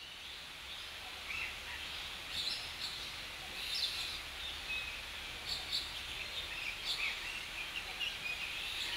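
Quiet outdoor ambience: a steady low hum with scattered short bird chirps.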